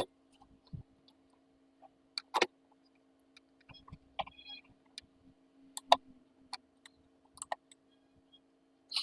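Irregular sharp clicks and taps of small repair tools handled on a phone repair bench, a dozen or so spread unevenly, over a faint steady electrical hum.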